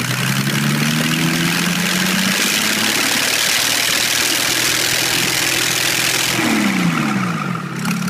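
Toyota 1HD-T 4.2-litre straight-six diesel running with its exhaust manifold and turbo off, revved up from idle, held at high revs, then dropping back to idle near the end; the open exhaust ports make it loud. At these revs cylinders 3 and 4, damaged by debris from the failed turbo's compressor wheel, throw out heavy oil smoke and, the owner says, skip a lot.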